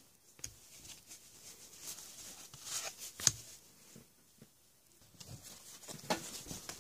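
Hands leafing through a stack of cardboard trading cards: light scattered flicks and slides of card against card, with one sharper click about three seconds in.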